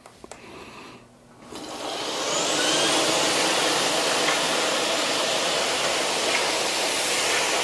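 Miele Duoflex HX1 Total Care cordless stick vacuum switched on about a second and a half in, its motor whining up to speed and then running steadily on its first suction setting, with no boost, over a bare floor.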